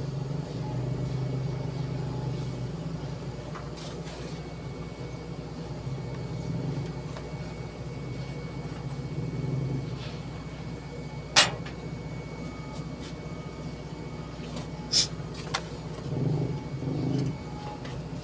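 Steady low machine hum, with a few sharp metallic clinks of tools and filter parts being handled, the loudest about eleven seconds in.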